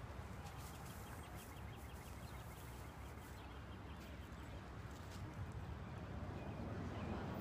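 Faint outdoor ambience: a low steady rumble, with a distant bird trilling a quick run of short high notes during the first few seconds.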